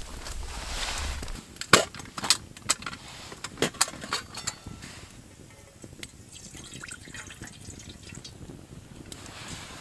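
Water pouring and sloshing, with a run of sharp metallic clinks about two to four seconds in as a metal camp pot is handled and set down by the fire. Faint small crackles follow.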